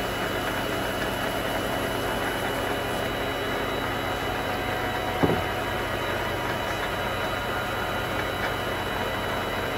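Vevor MX400 mini lathe running steadily with the spindle and chuck turning, while a Scotch-Brite pad is pressed against the spinning work near the end. A single short knock about five seconds in.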